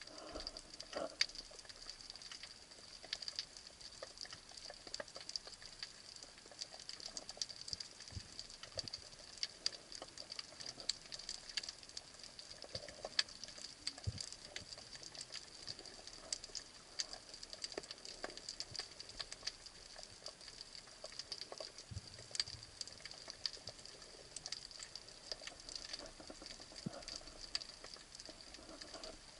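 Underwater ambience on a rocky reef, recorded with the camera under water: a dense, steady crackle of small clicks, with a few soft low thuds.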